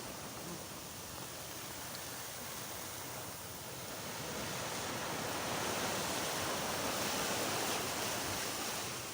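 Sea waves washing onto a sandy beach, a steady rush of surf that swells louder about halfway through and eases off near the end.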